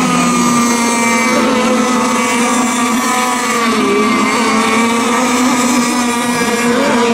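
Several radio-controlled racing boats running at speed on the water, their small engines making a steady, high buzzing whine. The pitch dips briefly about halfway through.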